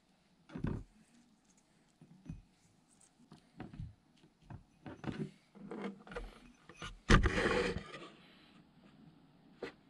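Handling noises in a porcelain bowl: a string of soft knocks and scrapes as smoked imitation crab sticks are torn apart by hand and laid in the bowl, with one louder scrape of under a second about seven seconds in.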